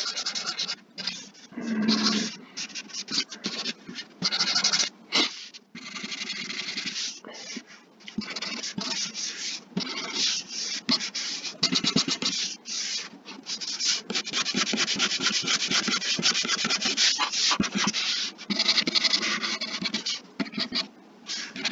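Pen stylus scratching across a drawing tablet's surface in quick, repeated shading strokes, with a few short pauses between runs.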